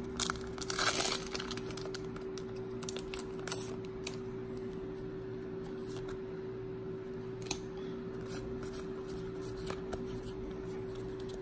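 Scissors snipping open a foil booster-pack wrapper, a quick run of sharp crackly cuts and foil crinkles in the first second or so. After that come a few faint clicks of trading cards being handled, over a steady low hum.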